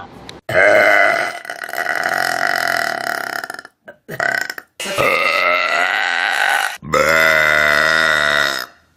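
Loud, drawn-out human burps one after another: a long one of about three seconds, a short one, then two more of about two seconds each, each cut off abruptly before the next. The last is deep with a wavering pitch.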